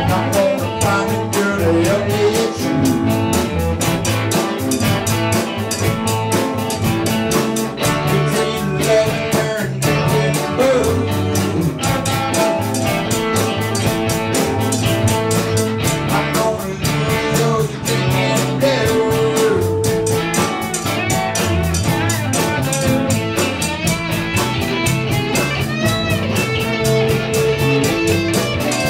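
Live rock band rehearsing: electric guitars, bass guitar and keyboard over a steady drum beat, with a man singing.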